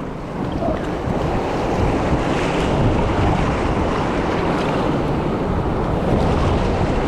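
Whitewater rushing loudly and steadily around a raft on the Wenatchee River running high, at about 8,000 cubic feet per second, with wind buffeting the microphone.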